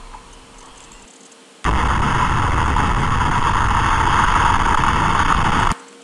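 Loud, steady rushing wind noise on an action camera's built-in microphone during a motorcycle ride. It cuts in abruptly about a second and a half in and stops abruptly about four seconds later.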